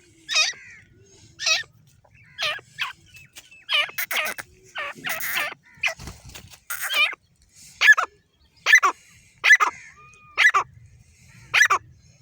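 Grey francolin calling: a series of short, sharp, pitched calls repeated roughly once a second.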